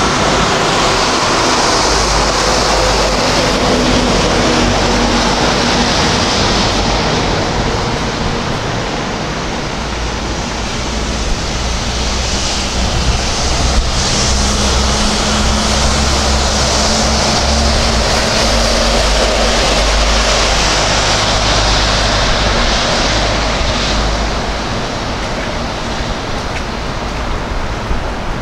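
Street traffic on a snowy city road: a steady rush of tyres and engines, with the low rumble of vehicles swelling and fading as they pass several times.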